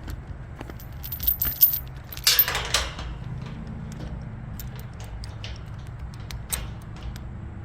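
Metal chain and gate lock clinking and jangling as they are handled, with many short sharp clicks and a louder scraping jangle about two seconds in, over a low steady engine hum.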